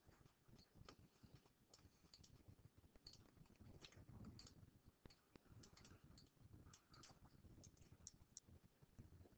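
Near silence: faint room tone with many small, irregular clicks.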